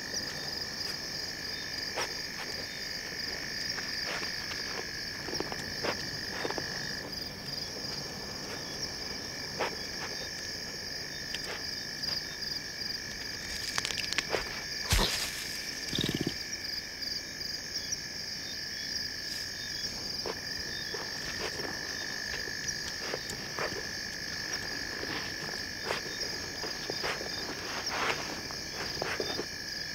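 Night chorus of insects and frogs: a steady high, fast-pulsing chirr with a lower steady trill under it, broken by scattered short snaps and cracks, one sharper crack about halfway through.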